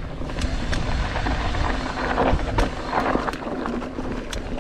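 Mountain bike ridden fast down a rough race trail: tyres rumbling over the dirt, with many sharp knocks and clicks from the bike rattling over bumps.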